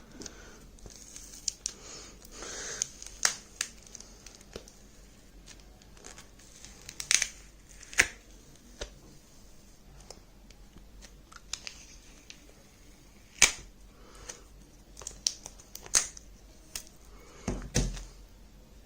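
Glass screen and plastic casing of a Lenovo tablet cracking and snapping as it is broken open: scattered sharp cracks and clicks, the loudest about seven, eight and thirteen seconds in, and a dull thump near the end.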